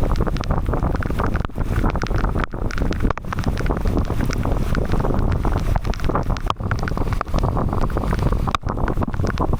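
Heavy rainstorm: a loud, steady rush of wind and rain, heaviest in the low end, with wind buffeting the microphone and irregular crackles throughout.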